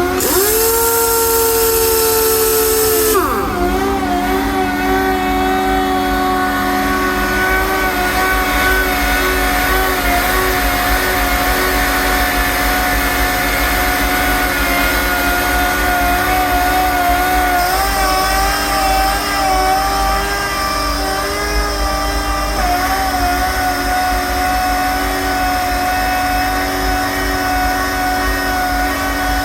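Screw air compressor running with a steady whine. During the first three seconds a strong hiss of air and a gliding tone sound over it, and both cut off about three seconds in.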